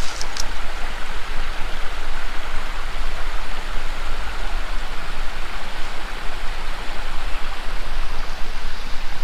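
Creek water rushing steadily over rocks, an even hiss with a low rumble underneath.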